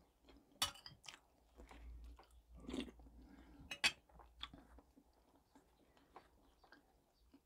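Faint, close-miked chewing and mouth noises of a person eating, with a few sharp clicks in the first four seconds, then almost nothing.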